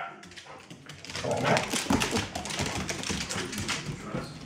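Golden retrievers playing rough: from about a second in, rapid scuffling and claws clicking on a hardwood floor, with brief dog whines.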